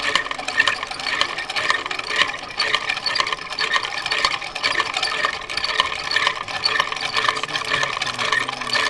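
Hand-cranked rope-making machine being turned steadily, its gears and hooks giving a continuous clicking rattle as the strands twist into rope.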